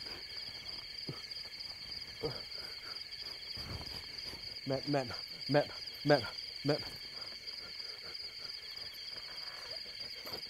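Crickets chirring in a steady, high, even trill. A man's voice makes several short sounds about halfway through.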